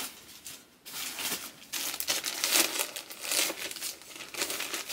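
Plastic mailer bag crinkling and rustling as it is handled, in uneven bursts of rustle that grow dense about a second in.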